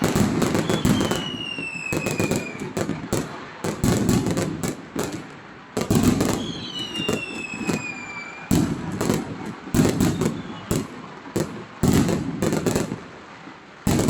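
Fireworks and firecrackers going off without a break: a dense run of sharp bangs and cracks. Two long whistles fall in pitch, one about a second in and one about six seconds in.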